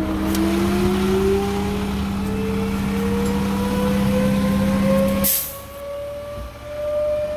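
Fire engine siren sounding, its pitch climbing slowly and steadily, over a steady low hum from the truck. About five seconds in the hum cuts off with a short, sharp burst of noise.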